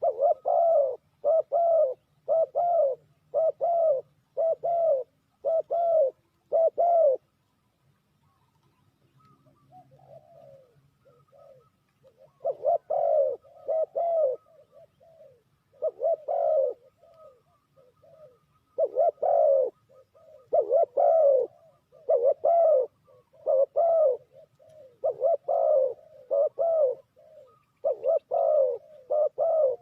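Spotted doves cooing: runs of low, evenly spaced coos, about one a second. After the first run there is a pause of several seconds with only a few faint coos, then the runs start again.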